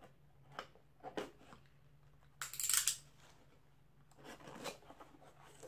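Box cutter slicing through packing tape on a cardboard carton: a few faint clicks, then a louder half-second rasp about two and a half seconds in. Soft rustling of cardboard follows near the end as the carton is opened by hand.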